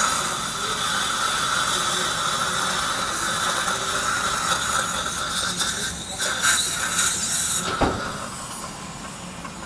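Dental suction tip hissing steadily as it draws saliva and blood from the patient's mouth during the extraction, then cutting off near the end.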